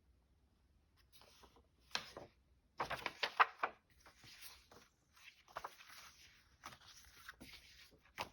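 Papers being handled and shuffled on a desk: irregular rustling and light taps, loudest in a burst of rustling about three seconds in.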